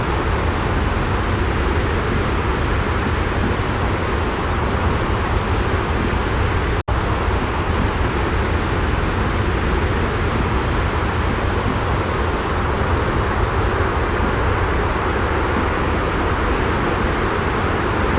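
Steady white-noise track, a deep even hiss heavy in the bass, that cuts out for an instant about seven seconds in.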